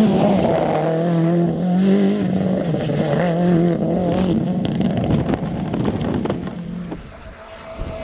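Rally car engine at high revs as the car drives the stage, its pitch stepping up and down with gear changes and throttle. The sound falls away about seven seconds in.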